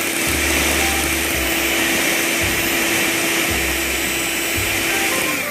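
Electric mixer-grinder motor running steadily with a constant hum, its blade whipping powdered whipping cream and chilled water in the jar; the motor stops just before the end.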